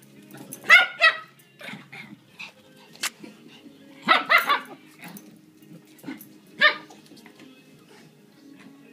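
Small dogs barking in play: two sharp barks near the start, a quick run of three about four seconds in, and one more after six seconds.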